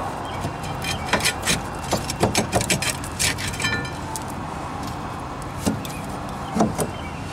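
Metal clinks and rattles of a rusty rear brake caliper bracket, its brake pads seized in it, being worked off the rotor by hand. There is a quick cluster of clicks between about one and four seconds in, then a few single knocks, over a steady low hum.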